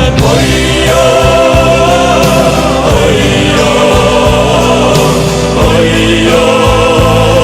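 Music: a song with voices singing long held, wavering notes over full instrumental backing.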